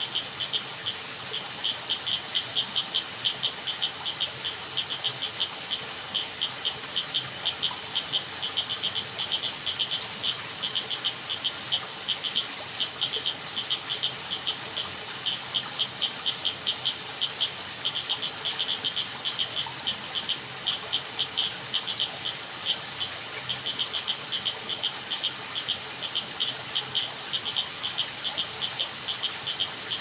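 Night chorus of frogs and insects: a constant stream of short high-pitched calls, several a second, over a steady insect hiss.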